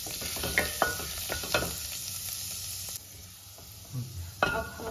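Chopped garlic sizzling in hot oil in a stainless steel kadhai, with a wooden spatula scraping and clicking against the pan as it is stirred. The sizzle drops quieter about three seconds in, and a few more clicks come near the end.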